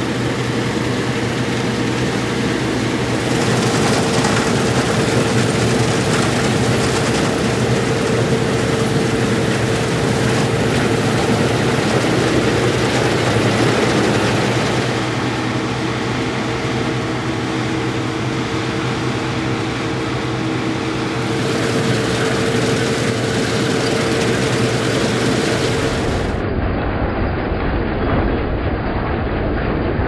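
Claas Lexion 560 Terra-Trac combine harvester working in barley: its engine and threshing machinery run steadily with a continuous hum. The sound shifts abruptly several times, and near the end it turns duller and deeper.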